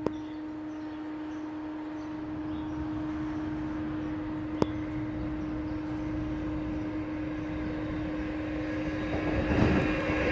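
An approaching Amtrak Keystone Service train: a steady hum and a low rumble, growing louder near the end as the train nears. There is a single sharp click midway.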